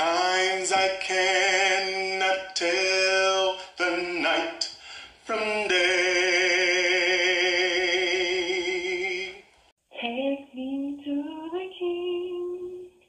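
A woman singing with vibrato, holding one long note for about four seconds in the middle. After a short break about three-quarters of the way through, another woman's voice sings, sounding thinner.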